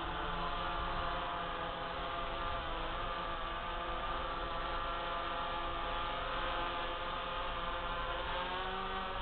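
DJI F550 hexacopter's six electric motors and propellers hovering and climbing, a steady buzzing hum of several close tones whose pitch wavers slightly.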